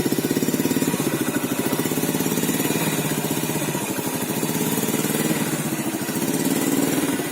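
A 2011 Yamaha Vega ZR motorcycle's carbureted single-cylinder four-stroke engine idling steadily through its exhaust, with an even pulse. The exhaust note is normal and the engine is in good running order.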